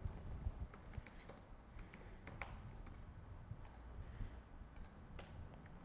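Computer keyboard typing: faint, irregular key clicks as a short phrase is typed.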